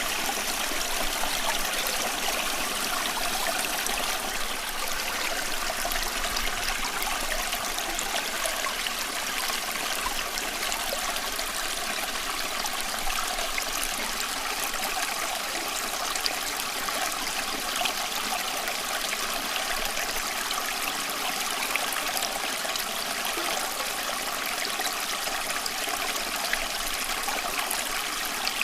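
Running water flowing and trickling steadily, a continuous bubbling stream ambience without breaks.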